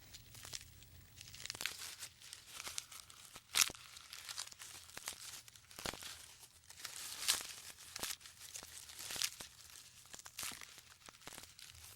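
Faint, irregular crackling and snapping with light rustling between: a few sharp cracks a second, the loudest about three and a half seconds in and again near six seconds.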